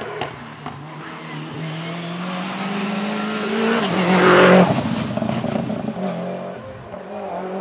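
Modified Subaru Impreza WRX STI's turbocharged flat-four engine under hard acceleration. Its note rises and grows louder to a peak about four and a half seconds in, then drops sharply and carries on at a lower pitch.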